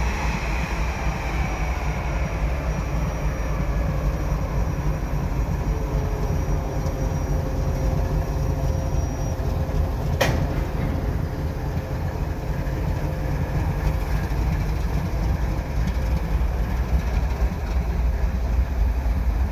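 CN ES44AC diesel-electric locomotive, with its GE GEVO twelve-cylinder engine, rolling slowly past at close range. It gives a deep, steady engine rumble with wheels on the rails and a faint steady whine. A single sharp clank comes about ten seconds in, and near the end the first freight cars roll by behind it.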